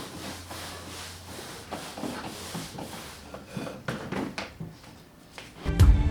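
Light rubbing, wiping and small knocks of things being handled on a surface, with no motor running. Background music starts near the end.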